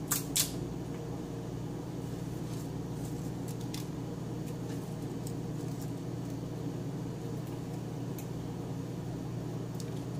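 Steady low electrical hum, with two sharp clicks right at the start and a few faint ticks scattered through, from hands spreading bay leaves over chopped vegetables in a metal roasting pan.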